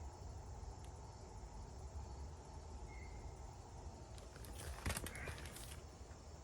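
Faint outdoor ambience with a steady low rumble, a short faint chirp about three seconds in, and a brief rustle of handling near five seconds.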